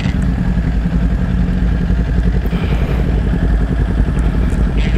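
Motorcycle engine running at a steady cruising speed, its pitch holding level, with wind rushing over the rider's helmet microphone.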